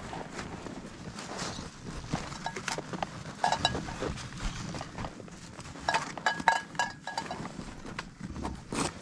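Footsteps crunching on snow as climbers walk downhill, with a few short ringing clinks about a third of the way through and again past the middle.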